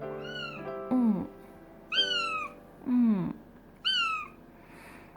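A cat meowing repeatedly, about five meows roughly a second apart, alternating short high-pitched meows with lower cries that fall in pitch. Background music plays underneath.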